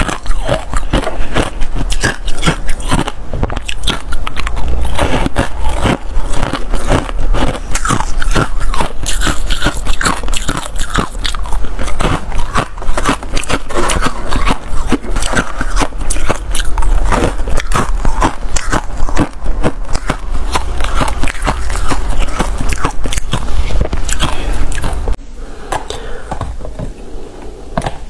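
Freezer frost ice being bitten and chewed close to the microphone: a dense, rapid run of crisp crunches. The level drops abruptly about 25 seconds in, and the crunching goes on more quietly.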